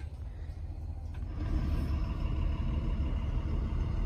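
Van engine and road noise heard from inside the cabin while driving: a steady low rumble that gets louder about a second in.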